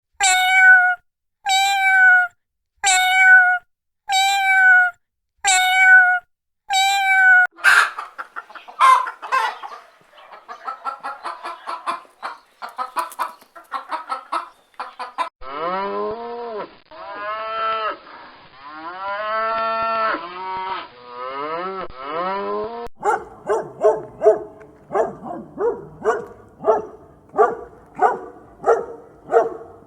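A sequence of farm animal calls. It opens with the same short call repeated six times at even spacing, then a busy stretch of mixed calls typical of a flock of poultry, then long calls that rise and fall like cattle mooing, and ends with a fast run of short calls.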